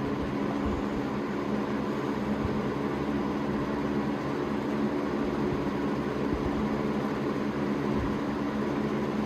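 Holmes HABF-20 box fan running on medium speed: a steady rush of moving air over a low electric motor hum.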